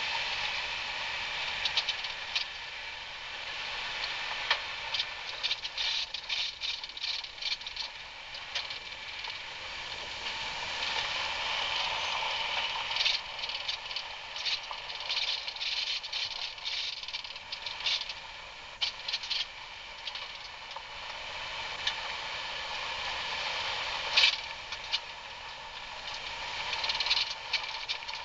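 Off-road vehicle moving over a rough dirt trail: a steady running noise with frequent rattles and clatters, and one sharp knock about 24 seconds in.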